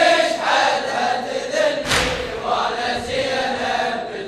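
Latmiya mourning chant: voices sing long, wavering held notes without clear words. One deep thump lands just under two seconds in, one beat of a slow pulse about three seconds apart.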